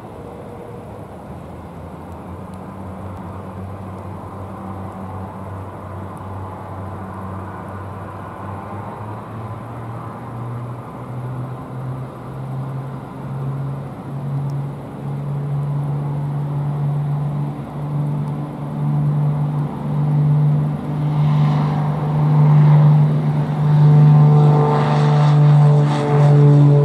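Twin piston engines and propellers of a Beech G58 Baron running at rising power for the takeoff run, growing steadily louder. In the second half the propeller tone pulses regularly and climbs slightly in pitch.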